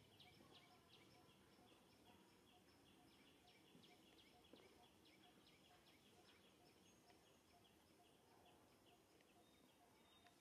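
Near silence: faint outdoor ambience with a high, regular chirping repeating about three times a second.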